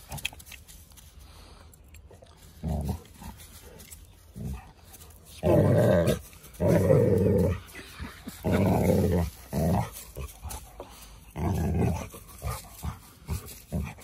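A Labrador dog growling in play while biting and tugging at a stick: five low growls, each up to about a second long, with shorter, quieter ones near the end.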